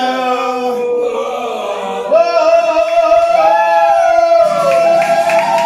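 A man singing live, drawing out long held notes that bend up and down in pitch. About two seconds in, one note settles and is held steadily while another voice line swoops above it.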